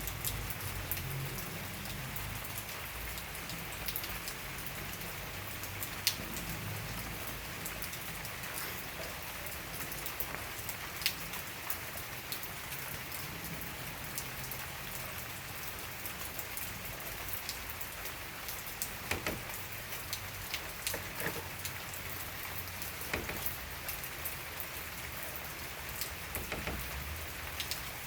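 Steady rain falling, with the even hiss of rainfall and scattered louder individual drops striking a surface.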